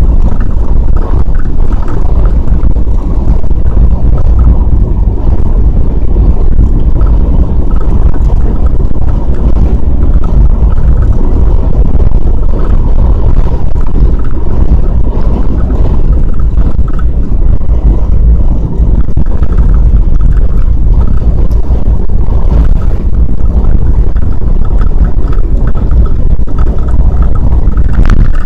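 Gale-force wind buffeting the microphone while travelling: a loud, steady low rumble with no let-up.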